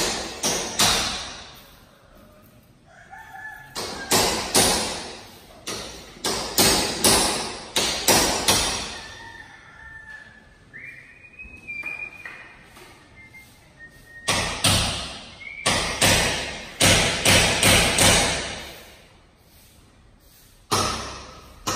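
Loud hammer blows in bursts, about two a second, ringing in a bare room. A rooster crows twice in the background, about three seconds in and again about eleven seconds in.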